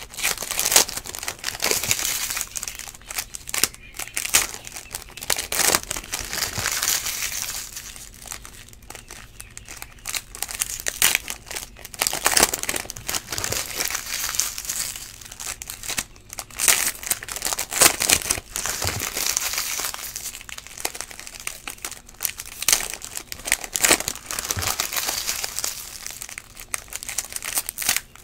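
Foil wrappers of Panini Prizm baseball card packs crinkling and tearing as they are pulled open by hand, in irregular bursts, with cards being handled and set down in between.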